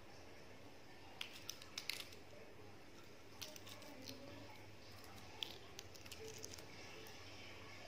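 Faint, scattered crackles and clicks of a cracked balut (fertilized duck egg) shell being picked and peeled away by fingers.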